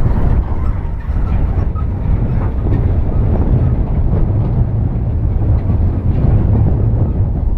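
Heavy earthmoving machine's diesel engine running under load, a steady low rumble with irregular clanking over it.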